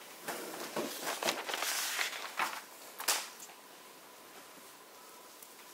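Handling noises as cookie dough is scooped out of a plastic mixing bowl by hand: irregular rustling and scraping with a few light knocks on the counter. About three seconds in, it goes quiet apart from a faint steady tone while the dough is rolled into a ball.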